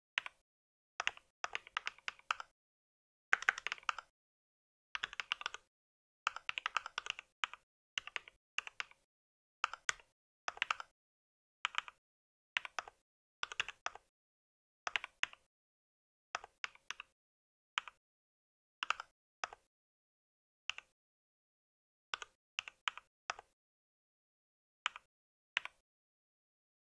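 Mechanical keyboard being typed on: quick runs of keystrokes with pauses between them, the runs growing shorter and sparser toward the end.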